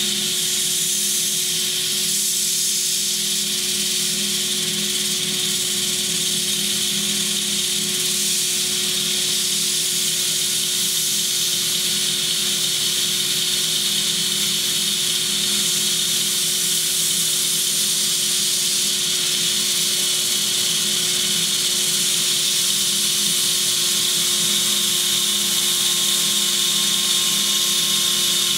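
Cordless drill-driver spinning a 120-grit hook-and-loop sanding disc at full speed while a hard-steel (over 60 HRC) knife blade is held against it. The motor whine stays steady, with the continuous hiss of the abrasive grinding the steel over it.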